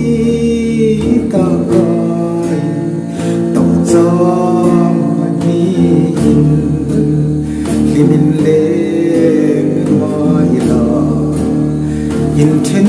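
A man singing a Mizo song and accompanying himself on a strummed acoustic guitar.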